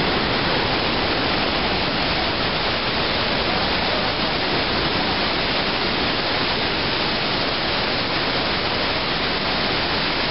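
Iguaçu Falls: the steady, unbroken rush of a huge mass of falling water.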